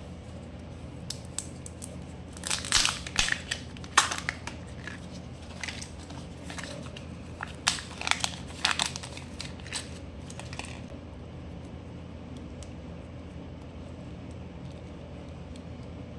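Plastic of a Kinder Joy egg crinkling and crackling as its sealed toy half is peeled open and the plastic toy parts are handled: clusters of sharp crackles and clicks for about the first ten seconds, then only a steady low hum.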